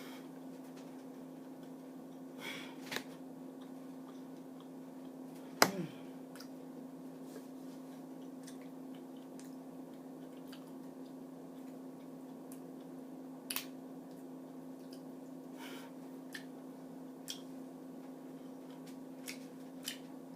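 Faint chewing and mouth sounds of someone eating mussels, with scattered small clicks and one sharp click about five and a half seconds in, over a steady low hum.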